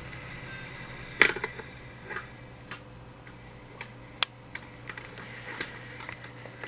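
Hard plastic Minecraft action figures clacking and clicking as they are set down and moved on a tabletop. A sharp clack comes about a second in and another about four seconds in, with several lighter ticks between, over a low steady hum.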